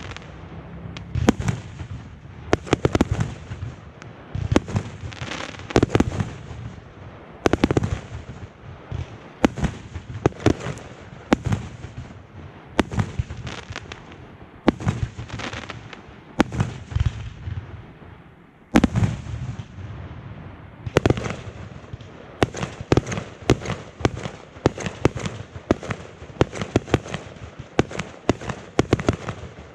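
Fireworks going off in rapid volleys of sharp bangs with crackle, in clusters a second or two apart. A short lull ends in one big bang a little past halfway, and the volleys come faster and denser after that.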